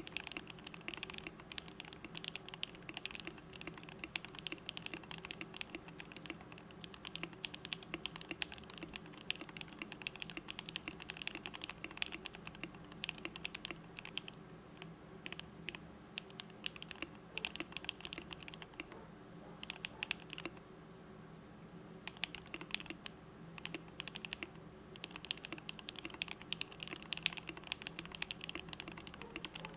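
Continuous typing on a custom 60% mechanical keyboard (Luna DZ60) with lubed JWK Alpaca linear switches, lubed stabilizers and PBT keycaps: a dense run of keystrokes, with a brief pause about two-thirds of the way through.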